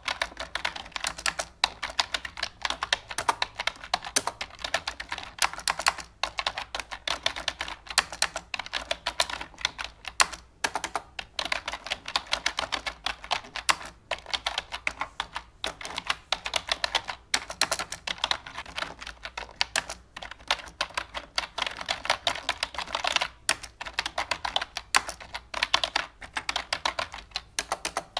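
Continuous rapid clicking like typing on a computer keyboard, many keystrokes a second with short pauses every second or two.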